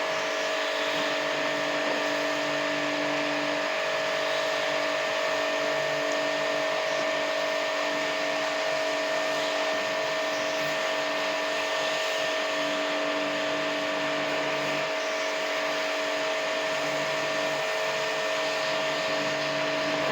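Small electric jet pump (portable pressure washer) running steadily, the kind used to wash a window AC, with a steady whine and hiss; a lower hum comes and goes every few seconds.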